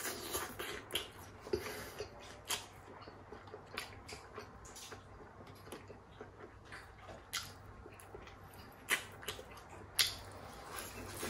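Close-miked chewing of sauced fried chicken: wet, sticky mouth sounds with irregular sharp smacks and crunches, the loudest about nine and ten seconds in.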